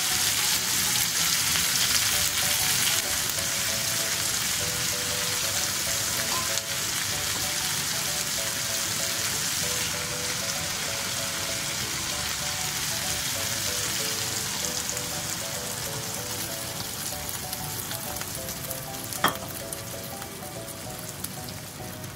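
Food sizzling in a frying pan, the sizzle slowly dying down, with one sharp click near the end. A soft, simple background melody plays underneath.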